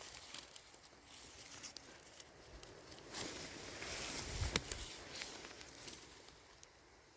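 Rustling and crackling of forest undergrowth under footsteps, with scattered small snaps and a louder thud a little past halfway.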